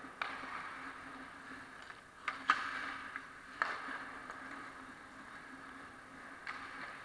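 Ice hockey play on the rink: several sharp clacks of sticks and puck, the loudest about two and a half seconds in, over the scraping of skates on ice and a steady low hum.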